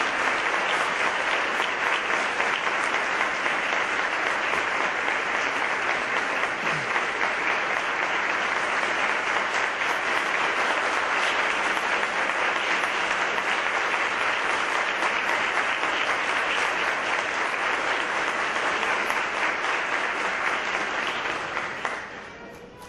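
An audience applauding steadily for about twenty seconds, the clapping dying away near the end.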